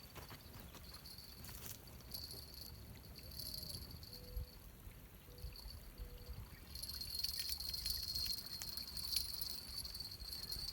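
Faint riverside ambience: light water sounds over a low wind rumble, with a steady high-pitched chirring that grows louder about two-thirds of the way through, and a few soft knocks.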